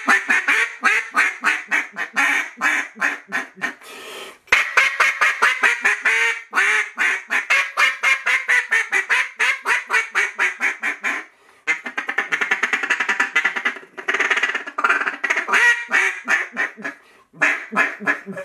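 RNT Mondo duck call, freshly fitted with a new cork and reed, blown in long runs of rapid quacks and chatter several notes a second, broken by short pauses for breath. It has a deep end, and the hard notes are really aggressive.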